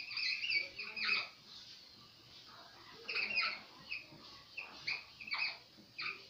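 Whiteboard marker squeaking against the board in short, irregular strokes as words are written, with a pause of a second or two about midway.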